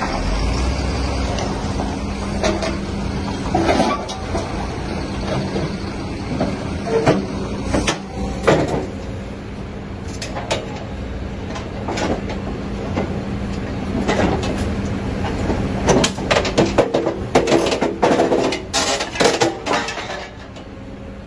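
Hidromek HMK220 excavator's diesel engine running steadily while its VTN CI200 hydraulic scrap shear cuts scrap steel, with repeated sharp metallic snaps and clanks. The clanks come thick and fast in the last several seconds.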